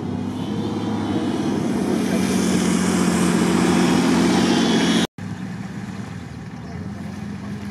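Quad bike engine running steadily and growing louder over about five seconds, as from an ATV working in swamp mud. It cuts off abruptly, and a quieter engine keeps running after the cut.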